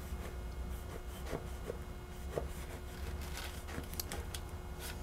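Knife scoring down through layers of unbaked phyllo in a baklava pan: faint, scattered ticks and scrapes of the blade, over a low steady hum.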